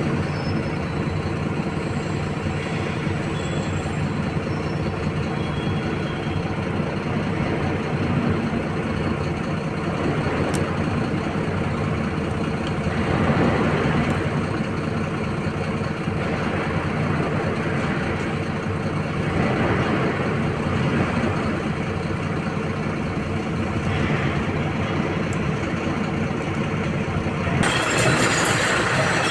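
Heavy diesel engine of a SANY SY225 excavator running steadily under working load, swelling louder every several seconds as the hydraulics work while loading a dump truck. A brighter, harsher noise joins in shortly before the end.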